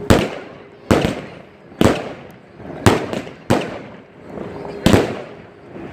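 Fireworks going off: six sharp bangs in quick succession, about a second apart, each trailing off in an echo.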